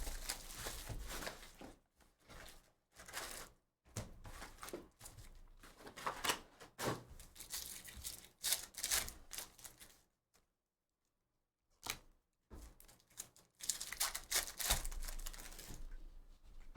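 Foil trading-card pack wrappers tearing and crinkling, with cards being handled, in a run of irregular rustles and clicks that stops for a couple of seconds about ten seconds in.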